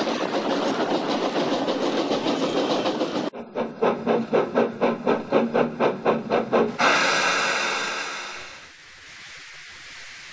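Steam locomotive sound effect: fast puffing, then distinct chuffs about four a second, ending a little under 7 s in with a long hiss of steam that fades out, as the engine draws up and stops.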